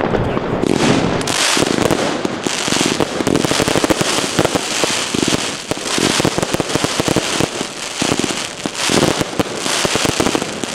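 Two Xplode Double Deck Blue consumer fireworks batteries firing together. A loud, continuous run of shots and dense crackling with no let-up, surging every second or so.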